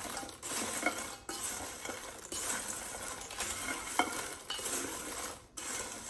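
Pork rinds being tossed with a wooden spoon in a stainless steel mixing bowl: a crisp, crackly rustle in repeated strokes about once a second. The spoon clinks lightly against the bowl twice.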